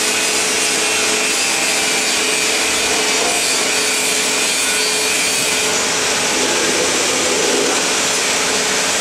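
Rotary heat press machinery running: a steady, unbroken hiss with a low hum of several steady tones beneath it.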